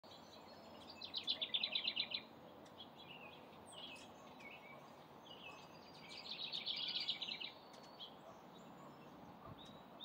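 House wren singing: two rapid, bubbling trills of quickly repeated high notes about five seconds apart, with softer scattered call notes between them.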